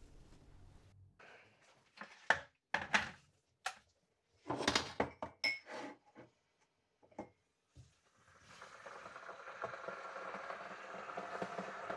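Knocks and clatter of an electric kettle and ceramic mugs being handled on a worktop. About eight seconds in, a click, then the switched-on electric kettle starts heating with a steady hiss that grows louder.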